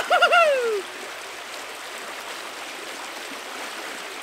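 Shallow river rushing over stones, a steady hiss of running water. In the first second a man gives a short whooping cry, a few quick notes each falling in pitch.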